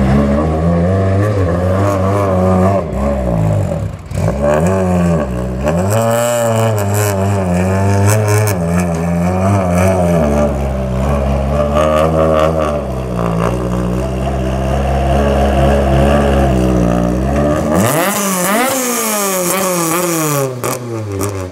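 Toyota-engined Mk2 Ford Escort rally car running at low revs as it creeps up a ramp, its pitch rising and dipping a little with the throttle. About 18 seconds in it is revved sharply and falls back.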